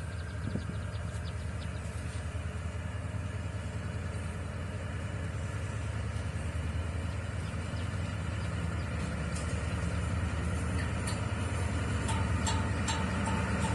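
D19E diesel-electric locomotive's engine running under load as it pulls a freight train away from a station, a steady low rumble that grows louder as it approaches. A few sharp clicks come near the end.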